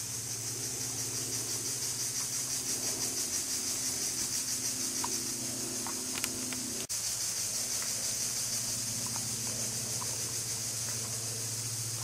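Forest ambience: a steady high insect buzz with a fine rapid pulse over a low steady hum, with a few faint short chirps. The sound drops out for an instant about seven seconds in.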